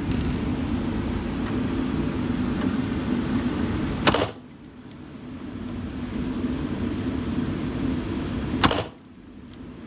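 Two handgun shots about four and a half seconds apart, each a single sharp crack, over a steady low rumble; the background sound dips for a moment after each shot.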